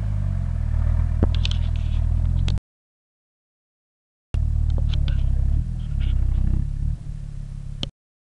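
Mercedes G-Class engine running at steady revs while stuck in mud, settling lower near the end. The sound cuts out completely for about two seconds in the middle and again just before the end.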